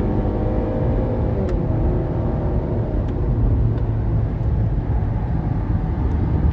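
Chevrolet car heard from inside the cabin while driving on a highway: engine hum over a steady tyre and road rumble. The engine note slides down about a second and a half in as the revs drop, leaving mostly road drone.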